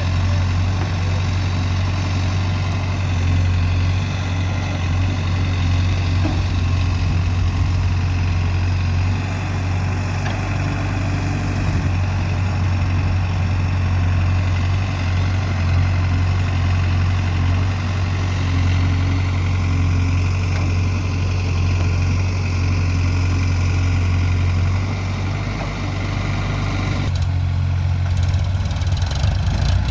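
Diesel engine of heavy machinery, a tractor or backhoe loader, running steadily with a deep, even hum; near the end its note shifts.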